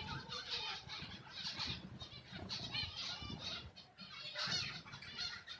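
Conures (small parrots) giving short, repeated squawks and chatter, several calls a second.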